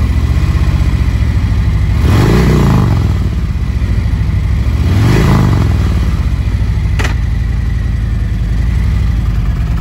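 2022 Harley-Davidson Electra Glide's Milwaukee-Eight 114 cubic-inch V-twin idling, revved twice, about two and five seconds in. A single sharp click comes near seven seconds.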